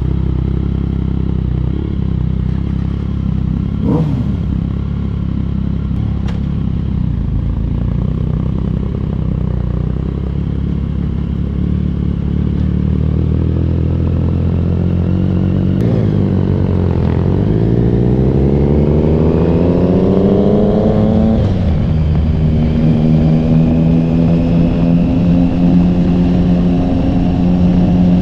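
Sport motorcycle engine idling, with a brief rev about four seconds in. Past halfway it pulls away, revs climbing steadily to an upshift, then runs at steady higher revs.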